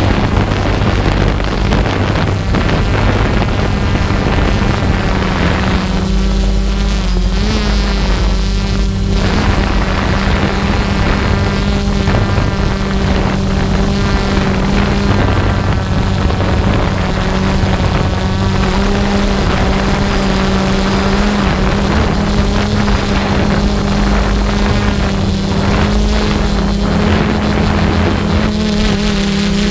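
Propeller motor of a small aircraft in flight, running steadily with a constant pitch, with wind rushing over the microphone.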